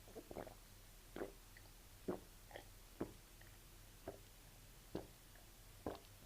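A person gulping down a cup of water in quick swallows, about one a second, each a short quiet gulp, while trying to cure her hiccups.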